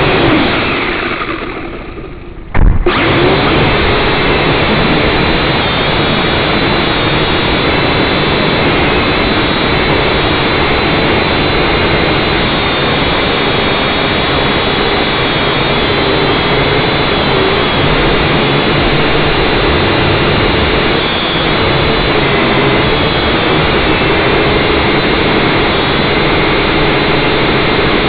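Syma X5C quadcopter's small coreless motors and propellers whirring loudly, heard from the drone's own onboard camera, their pitch wavering as the throttle changes. The whirr dies away over the first couple of seconds, then a sharp knock about two and a half seconds in and the motors are back at full speed, running steadily.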